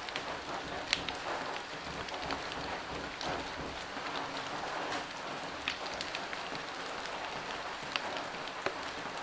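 Fried rice sizzling in a hot pan, the rice just added to fried egg, bacon, green peas and sweet corn: a steady frying hiss with occasional sharp clicks.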